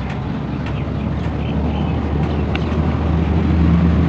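A low, steady engine hum that grows louder about three seconds in, with a few faint clicks of metal being handled.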